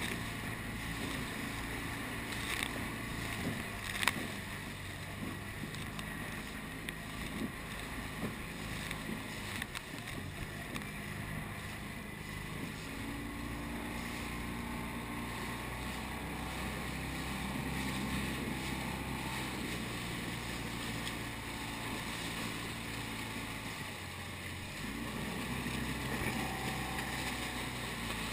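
Wind buffeting the microphone of an action camera on an inflatable boat, with choppy water splashing around the hull and a low steady motor hum underneath. There is a single sharp knock about four seconds in.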